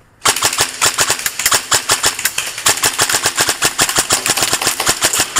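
Airsoft guns firing in a fast, uneven rattle of sharp cracks and BB impacts, about eight to ten a second, breaking in abruptly a moment in and running on without a pause.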